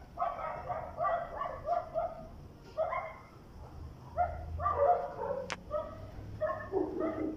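A dog barking repeatedly, short barks coming several a second in runs with brief pauses between them.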